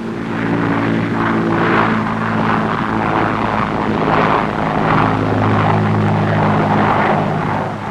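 Lockheed C-130 Hercules transport's four turboprop engines at takeoff power for a short takeoff. A steady propeller drone of several even tones under a rushing noise, swelling slightly in the first second.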